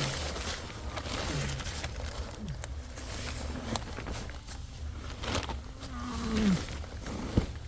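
A person crawling through a crawl space: scuffing and knocking against the ground and pipes, with several short, low grunts of effort, the longest falling in pitch near the end, over a steady low hum.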